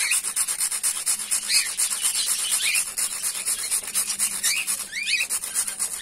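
Toast biscuit (rusk) being grated on a small flat metal hand grater over a steel plate: rapid, rhythmic rasping strokes as the biscuit is ground into crumbs.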